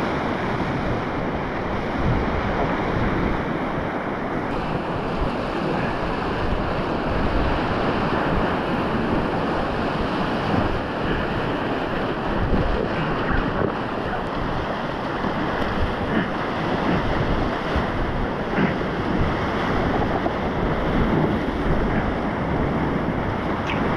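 Whitewater rapids of a swollen river at high flow, heard from a packraft in the middle of them: a steady, loud rush of churning water.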